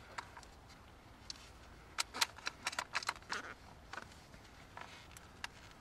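Close handling noise from gear in a ghillie suit: scattered small clicks and rustles, with a quick run of sharp clicks about two to three and a half seconds in.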